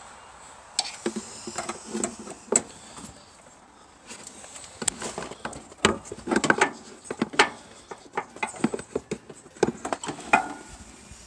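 Handling noise from a battery cable and hand tools being worked on the sawmill's metal frame: scattered, irregular clicks, taps and knocks, sparse at first and busier in the second half.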